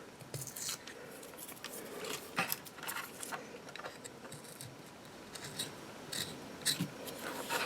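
Faint scratching and picking as a sticker is worked off a Zippo lighter's metal case, with scattered small clicks.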